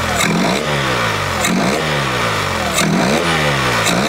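Yamaha 25 hp four-stroke outboard revved with four quick throttle blips: each time the engine note jumps up and falls back to idle. It picks up cleanly with enlarged carburettor jets (#130 main, #62 slow), fitted to cure the factory-jetting hesitation where it died under throttle.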